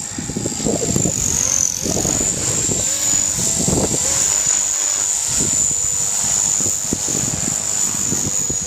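Electric RC helicopter's motor and rotor whine, high-pitched and steady, dipping in pitch for a moment about two seconds in. Strong wind buffets the microphone with irregular low gusts.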